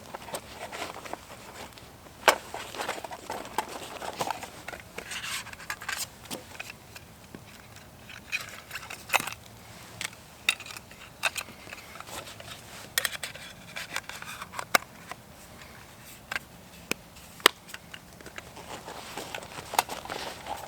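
Camp gear being handled: irregular rustling and scraping with many sharp clicks and knocks scattered through.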